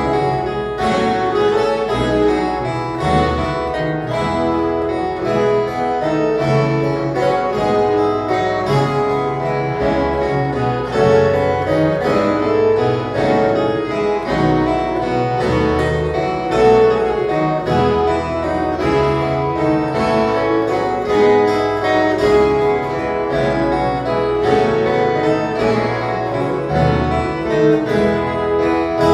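An orchestra of violas caipiras, the Brazilian ten-string steel-strung guitars, playing an instrumental piece: many plucked notes ringing together over a bass line.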